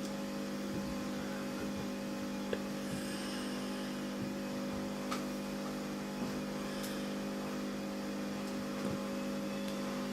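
A steady low hum, with a few faint short clicks.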